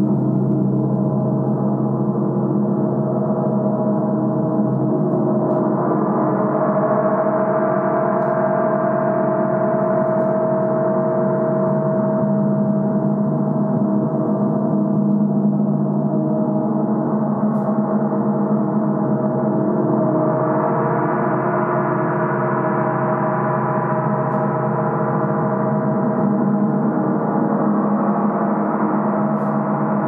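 A large 60-inch symphonic gong played continuously with mallets: a sustained, dense wash of many overlapping tones that never dies away. It swells brighter about six seconds in and again about twenty seconds in.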